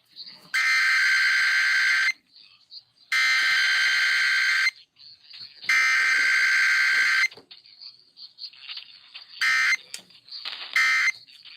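Emergency Alert System SAME header: three identical harsh buzzing digital data bursts, each about a second and a half long and about a second apart, coding a Required Weekly Test relayed from KDKA. Near the end come three much shorter bursts of the same buzzing tone.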